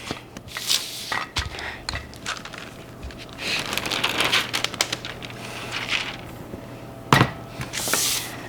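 Kitchen handling sounds while baking: scattered light clicks and rustling, with a sharp knock about seven seconds in.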